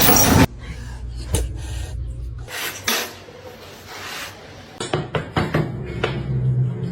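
Rasping, rubbing sounds with scattered light clicks and taps.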